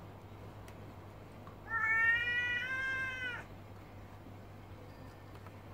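A stud tom cat's long, high yowl, starting about two seconds in and lasting under two seconds, rising slightly and then held: a territorial warning between two intact males squaring up to each other.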